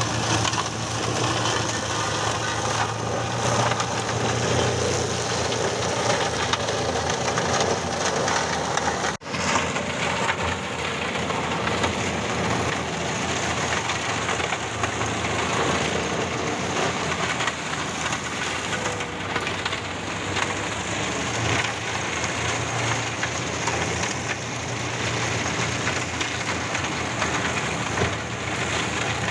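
John Deere tractor running a rear-mounted flail shredder that is chewing through piles of olive pruning branches: a steady, loud mechanical din of engine and shredding wood, with a brief break about nine seconds in.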